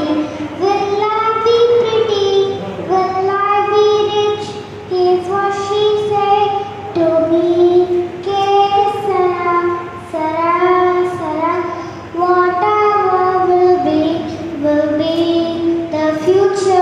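A young girl singing solo into a microphone, holding long sung notes in phrases with brief pauses for breath.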